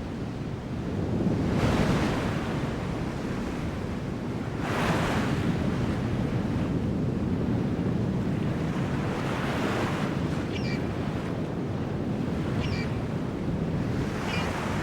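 Heavy surf breaking on a rocky shore: a steady rush of sea with waves crashing in surges every few seconds.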